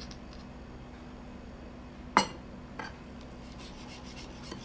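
A single sharp clink about two seconds in, with a softer knock just after, then quiet scraping of a wire whisk stirring pancake batter in a plastic bowl.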